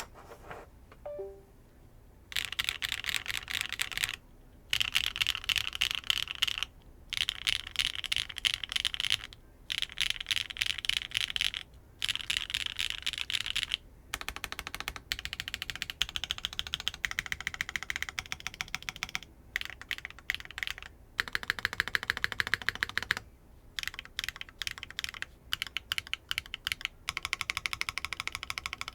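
Typing on a Wind X80 gasket-mount custom mechanical keyboard with HMX Lunar Stone linear switches, an aluminium plate and no foam: fast, clacky keystrokes at a slightly deep tone, in runs of a few seconds with brief pauses between them.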